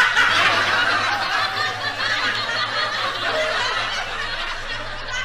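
Laughter from many people, starting suddenly and loudest at first, then easing off gradually.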